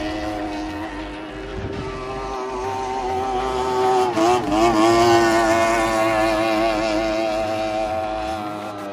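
Racing tunnel-hull powerboat's outboard engine running flat out at high revs, a steady high-pitched whine that briefly dips and wobbles in pitch about four seconds in as the boat passes.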